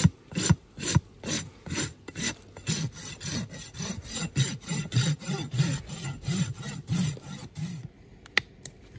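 Farrier's rasp filing a horse's hoof in quick back-and-forth strokes, about two to three a second, which stop near the end; a single sharp click follows.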